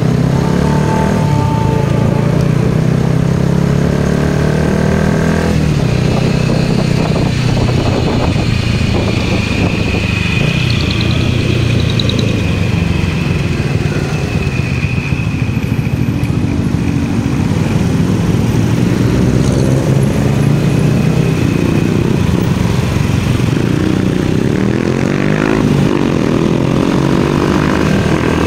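Motorcycle engine running on the move, its pitch rising and falling with the throttle, over steady road and wind noise.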